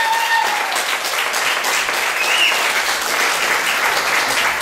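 Audience applauding at the end of a dance performance, with the music's last held note fading out about a second in.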